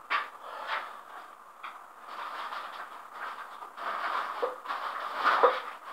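Rope of a home-made bicycle pulley hoist, a double and a single pulley, being pulled by hand, rasping through the pulley blocks in uneven pulls; loudest about five seconds in.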